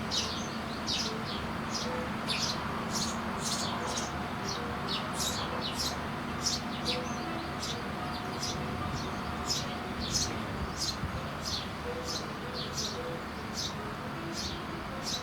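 Eurasian tree sparrows chirping: short, high chirps repeated about twice a second, over a steady low hum.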